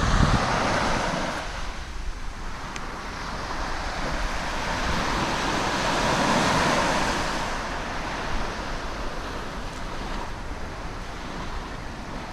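Sea waves washing against the shore, swelling to a peak about halfway through and easing off, with wind rumbling on the microphone.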